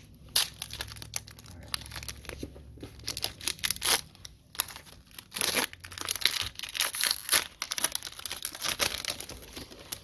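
Wrapper of a football trading-card pack crinkling and tearing as it is opened and handled, an irregular run of crackles with a few sharper snaps.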